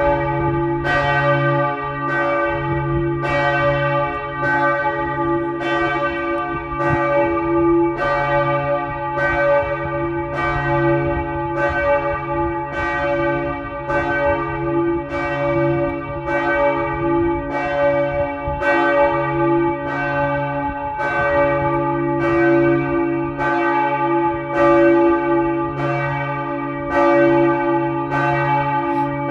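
The church bells of the Brugg Reformed church ringing a continuous peal: a quick, unbroken run of overlapping strokes. Each stroke rings on with a deep hum that swells and fades beneath the strikes.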